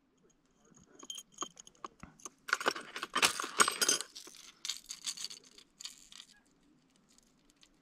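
Hard plastic fishing lures and their metal hooks clicking and rattling against each other and the plastic trays of a tackle box as they are rummaged through and picked out. The clicks come in several short clusters.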